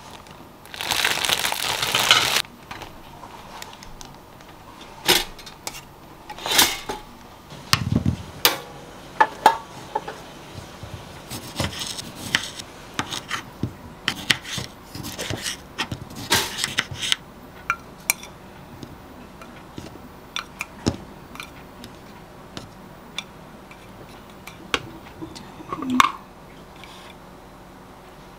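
Kitchen food-prep sounds: a knife cutting cherry tomatoes on a wooden plate, and dishes knocking and clinking as they are handled, in many scattered clicks and taps. Near the start comes a loud rushing noise for about a second and a half.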